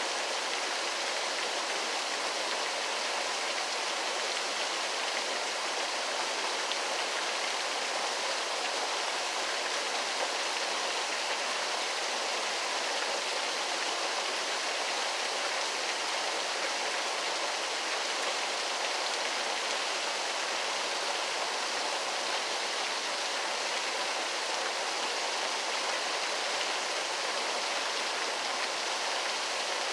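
Waterfall running: a steady, unbroken rush of falling water, mostly hiss with little deep rumble.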